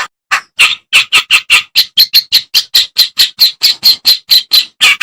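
Kerak basi (reed warbler) singing: a fast, evenly repeated run of short notes, about five a second.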